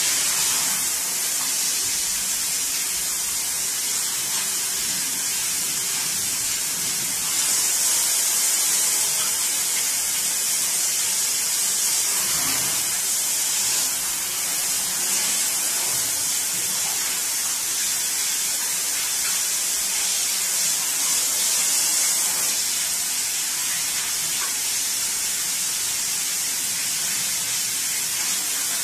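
Hand-held hose spray nozzle hissing steadily as a fine water jet washes the excess ink and oil off a gum-oil print plate in a steel sink. The spray eases slightly about halfway through, then picks up again.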